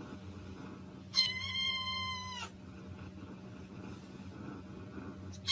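Kitten meowing: one high, steady meow over a second long starting about a second in, and a second meow beginning near the end.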